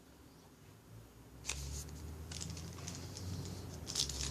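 Trading cards and a foil pack wrapper being handled, with a click, soft rustling, and crinkling that grows louder near the end.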